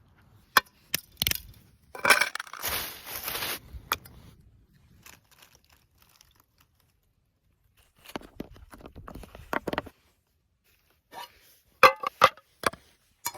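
Hand-work noises: sharp clicks and knocks, a rasping, tearing noise about two seconds in lasting over a second, a softer rustle later, and a quick cluster of clicks near the end.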